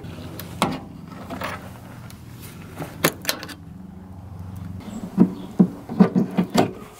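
Door trim panel of a 1982 Toyota pickup being pried off its retaining clips with a trim tool. There are a few sharp clicks, then a run of dull knocks near the end as the panel is handled, over a low steady hum that stops about two-thirds through.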